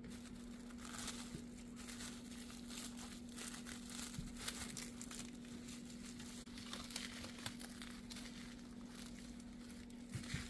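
Thin plastic crinkling and rustling as it is folded and pressed around a honey-covered steak, with small irregular crackles over a faint steady hum.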